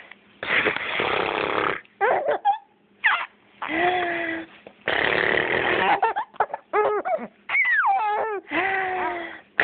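A baby giggling, with short wavering squeals and laughs that rise and fall in pitch, between loud breathy bursts about a second long.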